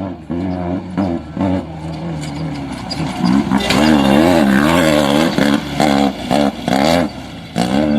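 Off-road vehicle engine revving hard, its pitch rising and falling unsteadily with the throttle, loudest from about the middle on, with brief drops near the end.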